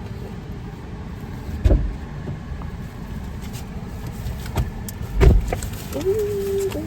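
Steady low rumble inside a car's cabin, with two dull thumps, one about a second and a half in and another about five seconds in.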